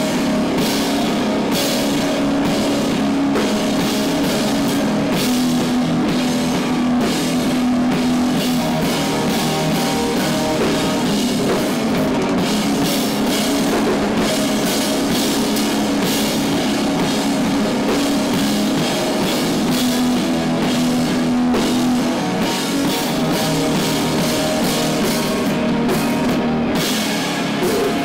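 A live rock band playing heavy, loud music: electric guitar, bass guitar and a full drum kit, with a steady wash of cymbals over sustained low guitar and bass notes.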